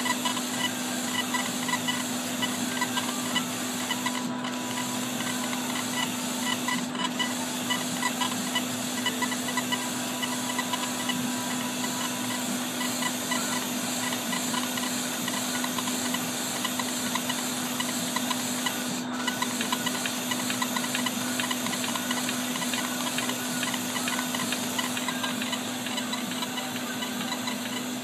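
60-watt LaserPro CO2 laser engraver raster-engraving glass: a fast, even mechanical rattle from the head running back and forth, over a steady hum.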